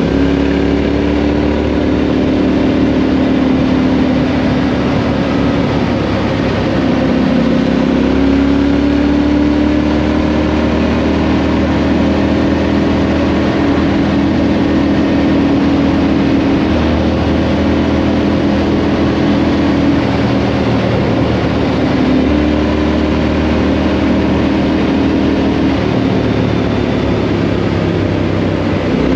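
2018 Triumph Street Scrambler's 900 cc parallel-twin engine running through a Vance & Hines exhaust while riding. The engine note climbs under throttle and falls back a few times as the rider shifts or rolls off.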